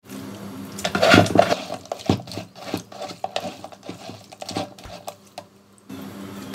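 Metal sieve, bowl and pot clattering and scraping together while pounded palm-nut pulp is sieved into the pot: a run of irregular clicks and knocks, loudest about a second in.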